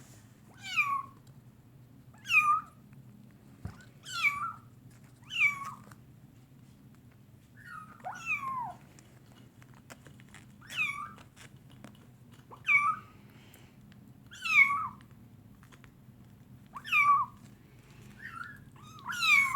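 Kitten mewing repeatedly: about ten short, high-pitched mews, each falling in pitch, one every second or two.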